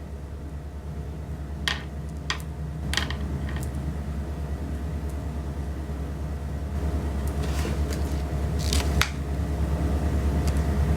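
A steady low rumble with a fast pulse that grows gradually louder, broken by a few sharp clicks and rustles, the loudest near the start and again a little before the end.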